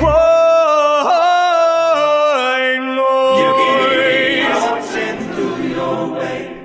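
Song mashup where the band drops out and layered a cappella vocal harmonies hold long sung notes, with no words picked out, fading away near the end.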